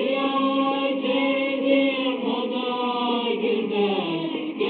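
Choir singing a Turkish folk song (türkü) together in long, held notes, the voices coming in at the start after a plucked-string passage.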